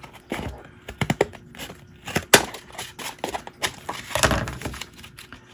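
Scissors snipping through several stitched layers of paper and cardstock: a series of irregular crunchy cuts, with one sharp loud snip about two seconds in. Near the end the cut paper pieces rustle as they are handled.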